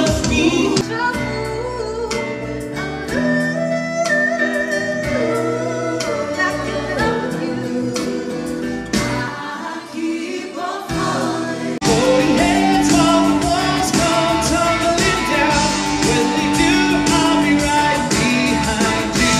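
A song from a live stage show: singers with band backing. It gets louder about twelve seconds in.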